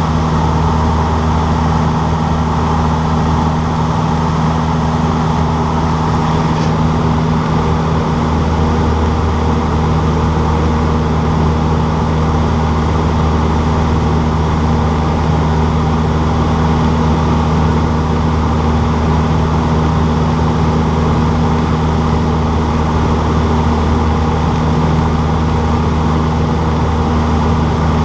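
Cessna 152's four-cylinder Lycoming engine and propeller running at a steady speed, a constant loud drone.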